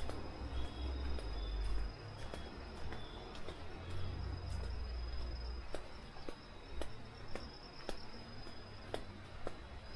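Forest insects calling with one steady high-pitched tone. A low rumble fades out about two seconds in, and regular sharp ticks come in from about six seconds in.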